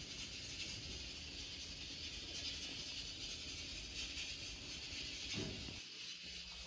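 Rice cooker venting steam with a steady hiss while it cooks.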